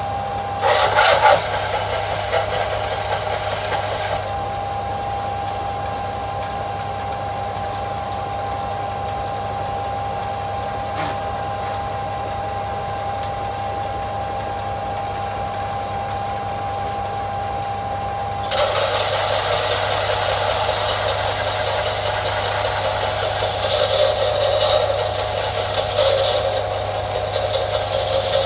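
Belt sander running with a steady hum and whine, and the grinding rasp of a steel blade pressed against its 80-grit belt. The grinding lasts about three and a half seconds near the start, then returns about two-thirds of the way in and goes on.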